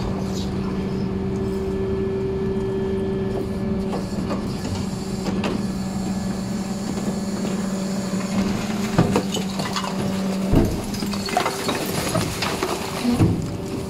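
Rear-loading garbage truck's hydraulic compactor running with a steady hum as the packer blade cycles up out of the hopper. From about nine seconds in, a series of thuds and rattles as bags of rubbish tumble into the empty hopper.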